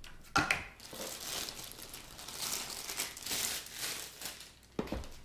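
Clear plastic bag crinkling as a folded tripod is handled and unwrapped from it, with a light knock shortly after the start and another near the end.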